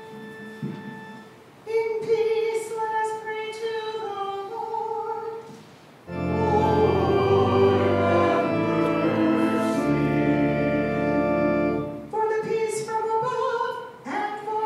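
Liturgical church music: a woman sings a melodic phrase, then sustained organ chords with deep bass sound for about six seconds, and the singing resumes near the end.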